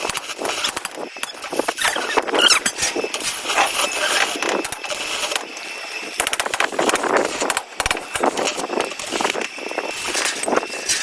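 Small birds chirping and squeaking in quick, high calls, mixed with many short clicks and knocks throughout.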